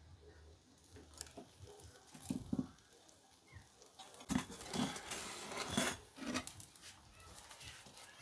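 Handling noises from a ceramic kamado grill and a metal pizza spatula: a few short knocks and scrapes about two seconds in, then a busier run of scraping and clatter around the middle, as a pizza is lifted off the hot pizza stone.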